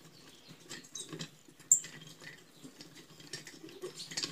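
Faint clicks and scrapes of an Anauger vibratory pump's metal parts being handled by hand, with one sharper click nearly two seconds in.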